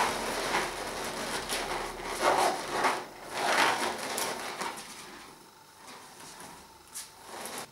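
Inflated latex balloons being handled: they rub and rustle against each other and against the hands in several bursts over the first five seconds, as a five-balloon cluster is worked onto a wire frame. It is quieter after that.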